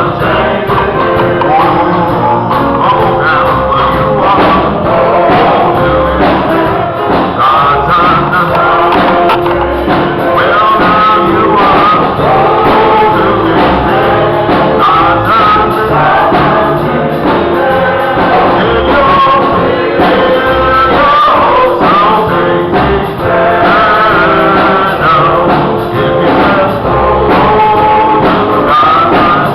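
Gospel music: singing voices over instruments with a steady beat.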